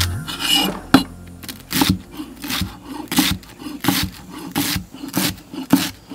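Kitchen knife chopping fresh carrot greens on a wooden log chopping block, a steady rhythm of crisp chops about one and a half a second as the blade cuts through the stems and hits the wood.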